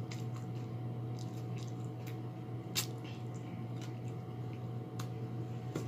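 Close-miked wet mouth sounds from eating spicy chicken wings: scattered smacks and clicks over a steady low hum.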